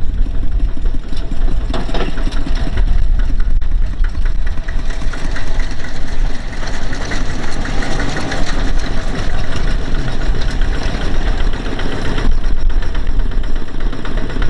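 An engine running loudly and steadily, its tone shifting slightly about twelve seconds in.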